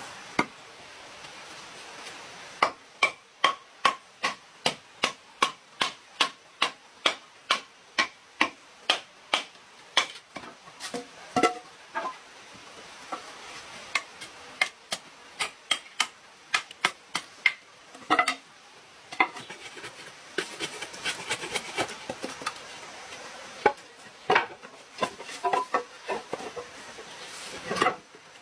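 Repeated sharp knocks of a tool striking wood, about two a second for the first ten seconds, then at uneven intervals, over a steady hiss.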